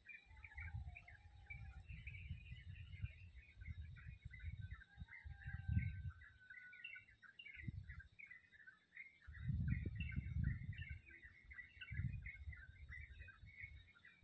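A dense chorus of many small birds chirping without a break. Low rumbling noise comes and goes under it and is loudest about six and ten seconds in.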